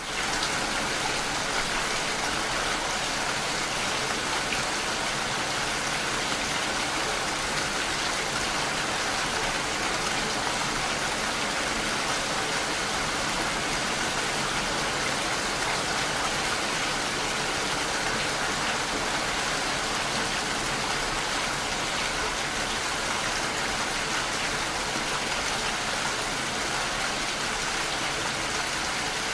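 Steady rain falling, an even continuous hiss with no separate drops or breaks standing out.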